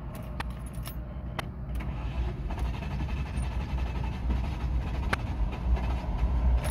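Low, steady vehicle rumble that grows slowly louder, with a few light clicks.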